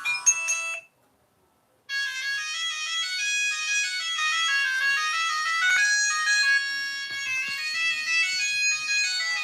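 Old mobile phone ringtones. A chiming melody ends under a second in, and after about a second of silence another melody of quick, reedy notes starts and plays on.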